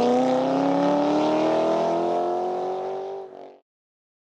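A car engine accelerating, its pitch climbing steadily, then fading out quickly a little past three seconds in.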